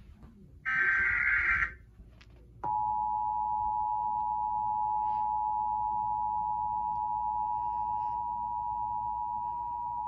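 Emergency Alert System tones from a TV speaker: one harsh digital SAME data burst about a second long, then after a short pause the EAS two-tone attention signal (853 and 960 Hz) starts and holds steady.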